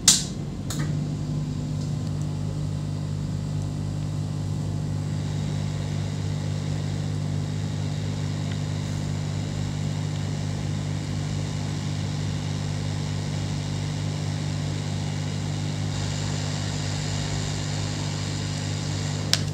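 Hot-air rework station blowing steadily, its fan giving a low hum under an even airy hiss, as it heats a surface-mount MOSFET to desolder it from a laptop motherboard. The MOSFET is being removed because it measured shorted. A sharp click marks the start.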